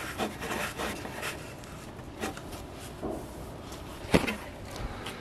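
Handling noise at a small engine's oil dipstick cap: scattered rubbing and light plastic clicks as the cap is worked back in, with one sharp knock about four seconds in.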